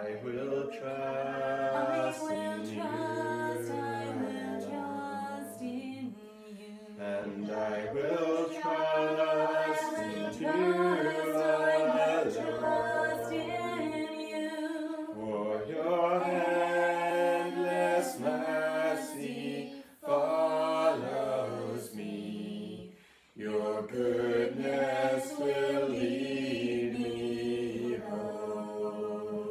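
A small group of voices singing a song together without accompaniment, in phrases with brief pauses between them.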